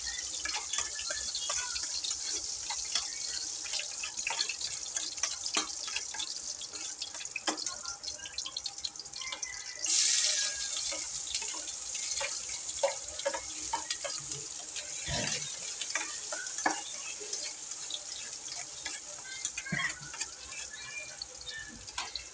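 Hot oil sizzling and crackling in a stainless steel pan. About ten seconds in, chopped ingredients are dropped in and the sizzle surges loudly, then settles back to a steady crackling fry as they sauté.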